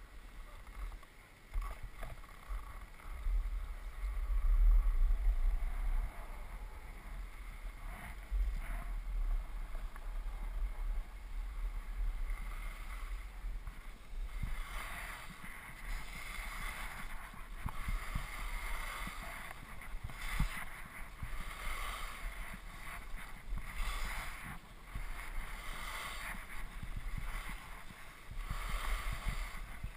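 Wind buffeting the microphone of a skier's camera on a downhill run, with the hiss and scrape of skis on packed snow. The scraping grows louder and surges in rhythm with the turns from about halfway through.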